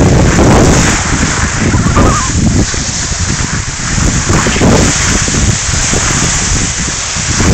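Wind buffeting a phone's microphone in gusts, over a steady hiss of skis sliding on snow.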